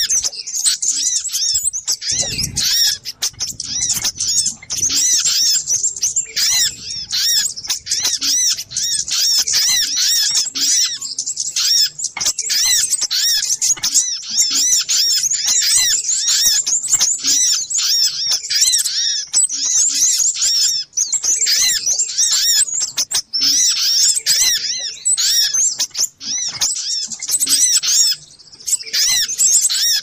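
Busy sogok ontong lure-call recording: many small birds chirping and twittering at once in rapid, high, sweeping notes without pause. A brief low rumble comes in about two and a half seconds in.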